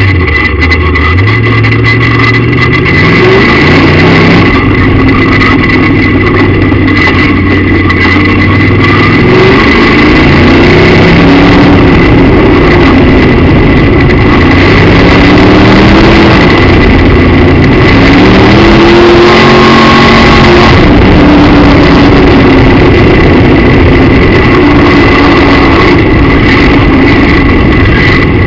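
Midwest Modified dirt-track race car's V8 engine at racing speed, heard from inside the cockpit: very loud, its revs climbing and falling back again and again through the laps.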